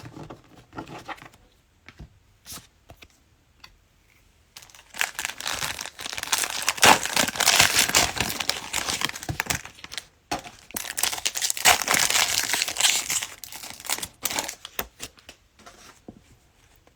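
A cellophane trading-card pack wrapper being torn open and crinkled, in two long stretches starting about four and a half seconds in and again around eleven seconds, with light ticks of card handling before and after.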